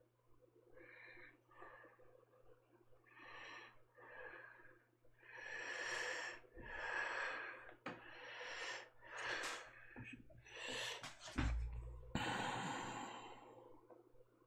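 Paintbrush strokes scrubbing paint across the painting, a short swish about once a second, louder and closer together in the second half, with one low thump on the desk near the end.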